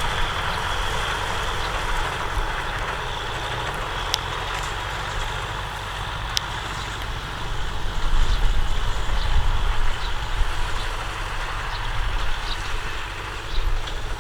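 Tractor engine running steadily, getting louder and more uneven from about eight seconds in.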